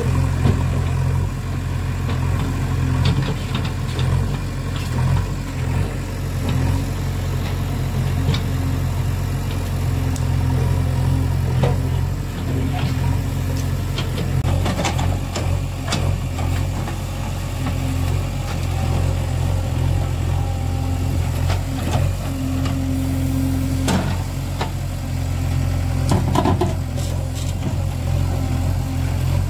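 Diesel engine of a JCB 3DX backhoe loader running steadily at an even speed, with scattered sharp knocks and clatters over it, thickest through the middle and again briefly near the end.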